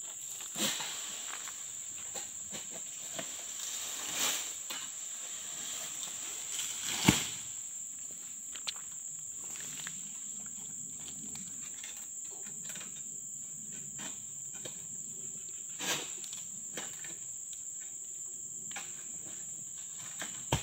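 Steady high-pitched drone of insects, with a few scattered knocks and rustles, the loudest a sharp knock about seven seconds in.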